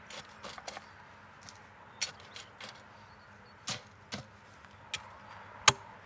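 Metal shovel working dry, stony dirt: an irregular scatter of sharp clicks and knocks as the blade meets soil and stones, the loudest near the end.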